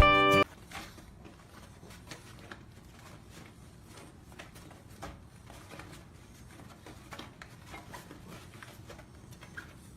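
Background music cuts off abruptly about half a second in. Then faint, scattered light taps and rustles sound over quiet room tone.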